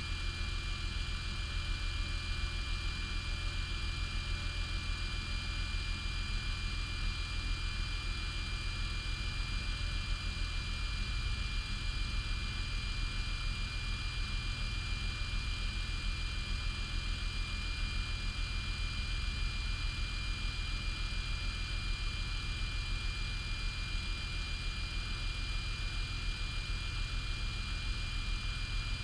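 Car engine idling during cold-start warm-up with its electric secondary air injection pump running, a steady whir with a high-pitched tone over the low idle. The pump is blowing air into the exhaust ports to help the catalytic converter light off.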